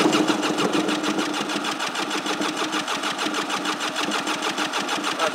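Polaris Pro 1200 three-cylinder two-stroke PWC engine being turned over by its starter for a compression test on the PTO-side cylinder: a steady whir with an even, fast chug of about eight to nine beats a second. The compression is healthy, about 150 psi.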